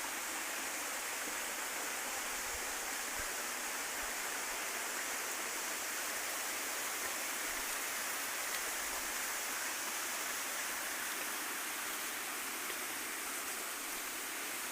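Steady rushing of running water, like a stream flowing nearby.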